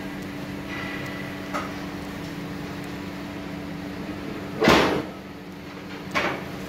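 Steady low hum with two loud knocks about a second and a half apart, the first the louder and slightly longer.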